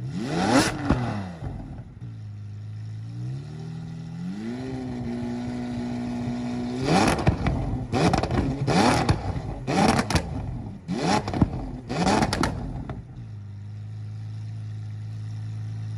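Lamborghini Aventador SVJ's V12 engine revved while parked: one sharp rev near the start, a settle to idle, engine speed rising and held for a couple of seconds, then six quick, sharp rev blips in a row before it drops back to a steady idle.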